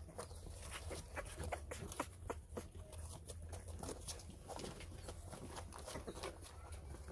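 A pet animal making a strange sound: an irregular run of short clicks and ticks, several a second, over a low steady hum.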